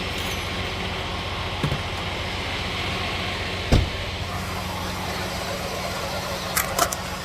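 Truck engine idling steadily, with one sharp thump about halfway through and a few quick clicks near the end.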